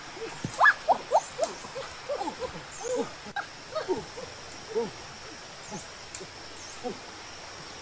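Many short animal calls, each a quick note that rises and falls in pitch, coming irregularly several a second and thinning out after the first few seconds, over a faint steady high hiss.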